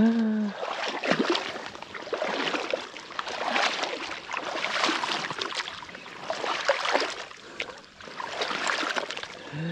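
Footsteps wading through shallow water in a flooded rice paddy, each stride a splash and slosh, about one a second.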